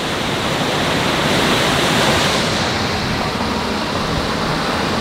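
Steady rushing noise of storm wind and rain, heard from inside a vehicle, with no distinct knocks or tones. The high hiss eases slightly a little over two seconds in.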